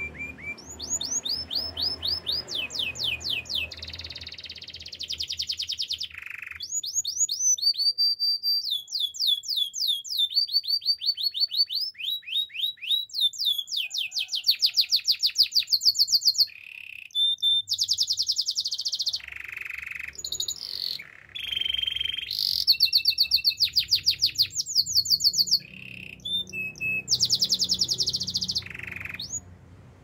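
White domestic canary singing a long, varied song made of fast runs of repeated notes and rolling trills, with short pauses between phrases. The song stops shortly before the end.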